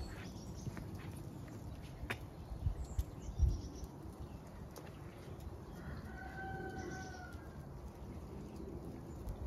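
A rooster crows once, about six seconds in: a single held call lasting about a second. Under it runs a steady low rumble, with one sharp thump about three and a half seconds in.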